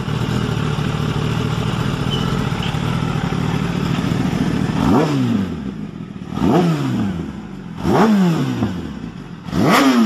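Kawasaki Ninja ZX-10R's 998 cc four-cylinder engine idling, then blipped four times about a second and a half apart. Each rev climbs sharply and falls straight back to idle.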